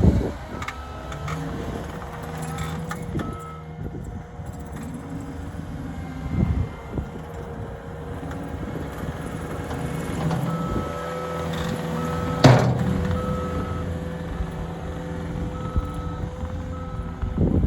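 Diesel engine of heavy earthmoving equipment running while the machine's backup alarm beeps in several short spells. A single sharp knock, the loudest sound, comes about twelve and a half seconds in.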